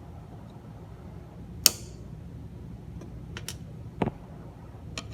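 Small tools and parts being handled on a turntable under repair: a sharp click about a second and a half in, a few lighter clicks, and a duller knock about four seconds in, over a steady low hum.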